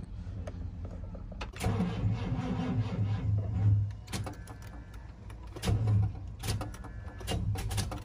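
Starter of a 1991 Chevy OBS pickup trying to turn the engine over on a nearly dead battery. It drags weakly for about two seconds, then makes a shorter try and a few clicks.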